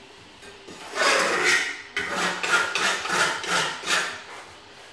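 Repeated scraping strokes on a concrete floor, about two a second, starting about a second in and stopping a little after four seconds.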